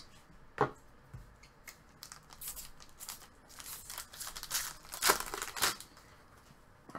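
Hockey trading cards being handled and sorted, sliding and rustling against each other in a series of short swishes, the loudest a little past the middle.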